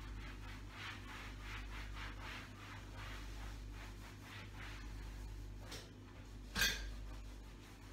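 A cloth wiping a kitchen wall in repeated rubbing strokes, about two to three a second, over a steady low hum. Near the end comes a single sharp knock, the loudest sound.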